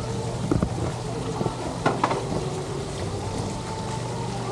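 Running water splashing and trickling at outdoor water-play tables, with wind rumbling on the microphone; a couple of short knocks about two seconds in.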